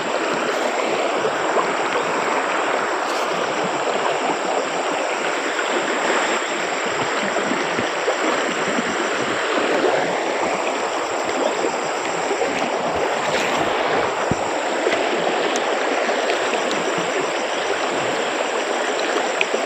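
Shallow rocky stream running over a riffle: a steady, even rush of flowing water.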